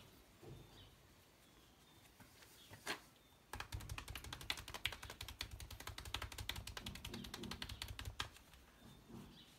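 Massage percussion: hands rapidly tapping and chopping on the body, a fast run of many soft slaps a second lasting about five seconds. It is preceded by a single sharp click about three seconds in.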